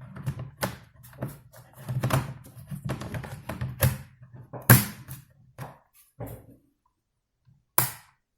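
Removable battery pack of a Lenovo G50-30 laptop being fitted into its bay: a series of plastic taps and knocks with handling noise, the loudest about five seconds in, then a single sharp click near the end as it seats.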